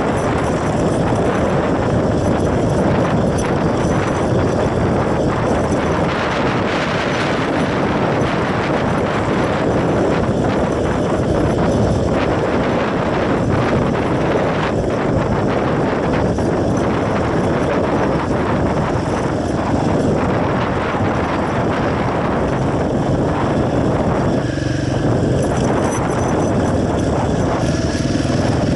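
Motorcycle engine running steadily while the bike is ridden, a continuous loud mechanical rush with no pauses.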